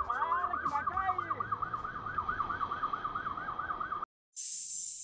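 Police siren sounding a fast yelp, about five rising sweeps a second, that cuts off abruptly about four seconds in; a short burst of hiss follows near the end.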